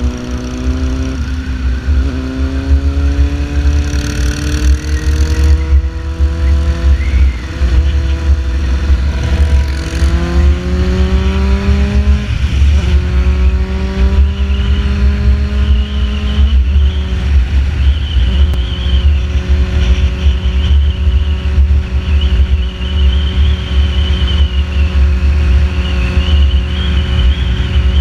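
Sport motorcycle engine accelerating hard, its pitch climbing and then dropping at each of several upshifts, then holding a steady cruising note for the last third. Heavy wind rumble buffets the bike-mounted microphone.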